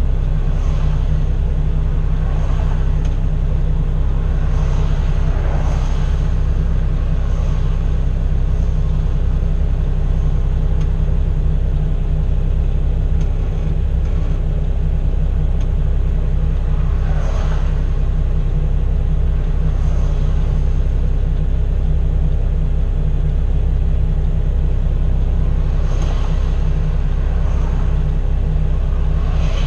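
Inside the cab of a 2012 Kenworth W900L on the road: its 600 hp Cummins ISX diesel runs at a steady low drone, mixed with road rumble.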